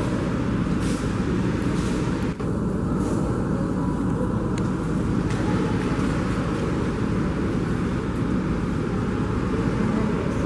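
Steady low rumble of a Boeing 787-9 with Rolls-Royce Trent 1000 engines during pushback, muffled through glass, with a brief dropout about two seconds in.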